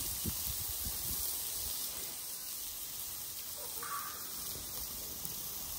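Steady hiss, typical of minced chicken sizzling over a grill, with a few low thuds near the start and a short higher-pitched sound about four seconds in.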